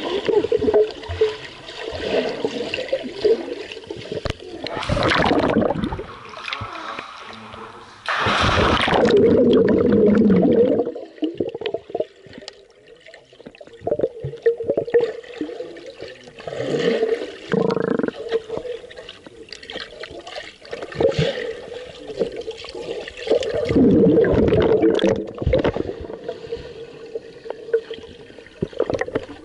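Swimming-pool water heard underwater: a muffled gurgling, bubbling wash from swimmers moving around the camera, over a steady low hum. It swells into louder rushes of bubbles several times, the biggest about eight to ten seconds in and again about twenty-four seconds in.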